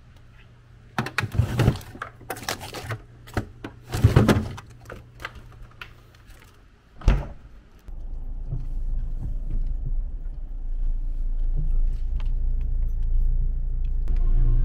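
Jingling and clattering handling noises for several seconds, then a single heavy thump about seven seconds in, followed by a steady low rumble that builds toward the end.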